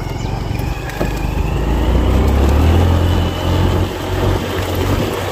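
Motorbike engine running under load on a steep muddy hill track, getting louder about a second in and staying strong.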